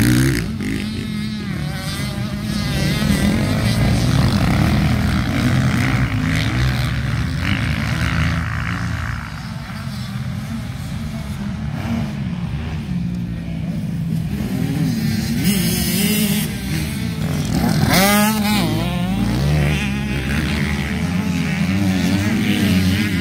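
Small youth motocross bikes' engines running and revving on a dirt track, the pitch rising and falling as riders accelerate and ease off, with one bike revving harder and closer about 18 seconds in.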